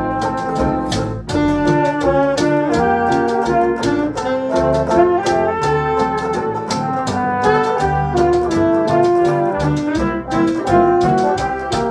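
A small jazz band playing an instrumental passage, brass instruments carrying the melody over a steady beat.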